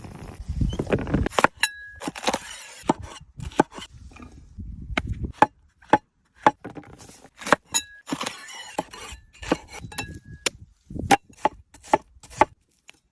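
Irregular sharp knocks and clinks, sometimes several in quick succession, over low rumbling handling noise, with a few brief high steady tones.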